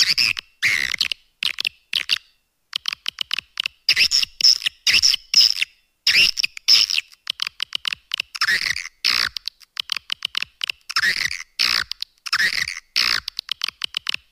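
Swiftlet calling sound for luring swiftlets: dense chirping twitters mixed with rapid trains of clicks. They come in bursts of about half a second to a second, with brief pauses between them.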